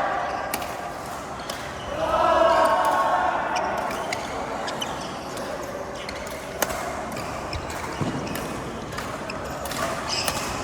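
Badminton rally: rackets striking the shuttlecock in sharp, irregular cracks roughly once a second, with players' shoes working the court in between.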